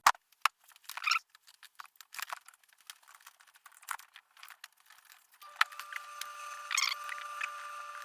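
Quick small clicks, taps and rustles of wires and plastic connectors being handled while a wiring harness is put together. About two thirds of the way in a faint steady hum begins, with a brief scratchy rasp over it.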